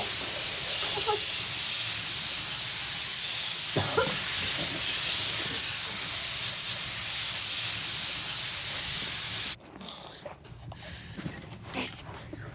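Spray-tan sprayer hissing steadily as it blasts a mist, then cutting off suddenly about nine and a half seconds in. After that only a few faint, short sounds remain.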